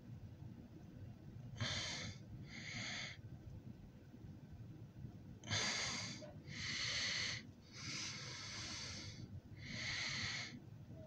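A person breathing noisily close to the microphone: about six breaths in and out, each lasting up to about a second and a half.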